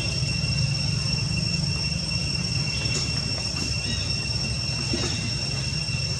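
Insects droning at a steady high pitch, with a steady low rumble underneath.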